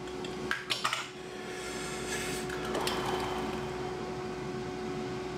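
A few plastic clacks as the blender's blade base is set down on the worktop, then thick milkshake pouring from the plastic blender jug into a plastic tumbler, over a faint steady hum.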